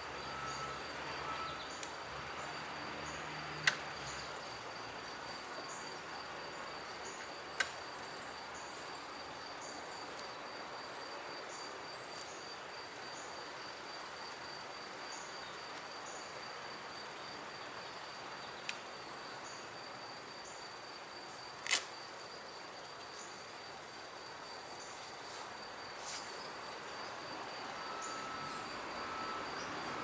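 A singing insect chirping in a fast, even pulse that never lets up, over a faint steady background rush. A few sharp clicks break in now and then.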